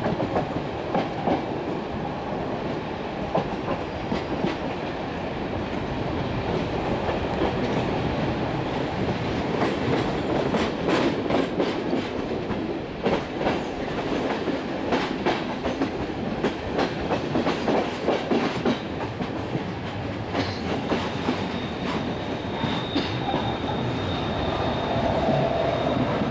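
Passenger train coaches rolling over the points and rail joints at a station throat, the wheels clattering in clusters of sharp clicks over steady rolling noise. Near the end a thin, steady high squeal sets in as the wheels take the curve.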